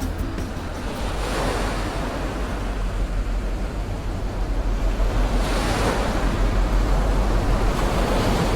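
Ocean surf washing in, a rushing noise that swells three times, over a low rumble of wind on the microphone.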